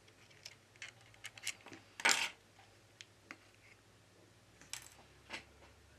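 Small clicks and taps of metal repair tools on an opened iPhone 11's internals, with a louder brief scrape about two seconds in, as the metal bracket over the battery connector is taken off.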